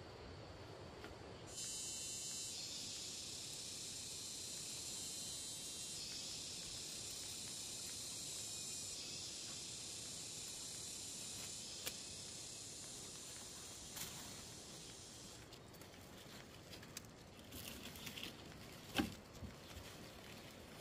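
High, dense insect buzz that starts suddenly and fades out after about fourteen seconds, followed by scattered light clicks and knocks, one sharper knock near the end.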